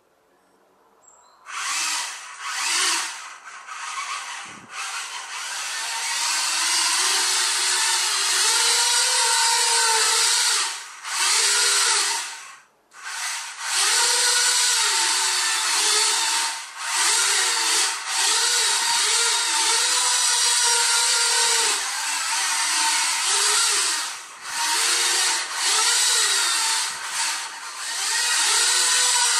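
Small electric gear motors of a toy four-wheel RC car chassis whirring as it drives, pitch rising and falling as it speeds up and slows. The sound starts about a second and a half in and cuts out briefly several times when the car stops.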